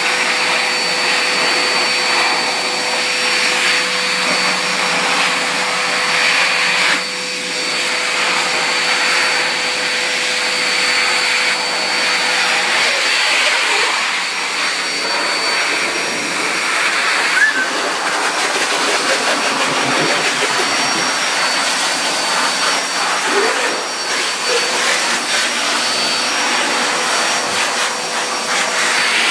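Pet grooming dryer (a hose-fed blower) running steadily, blowing air over a wet kitten's fur to dry it, with a brief dip in the sound about seven seconds in.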